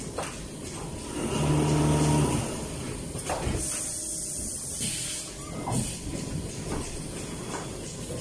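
Automated production machine for small blender and juicer motors running: a low hum that swells for about a second near the start, pneumatic hisses, and several sharp clacks of its actuators.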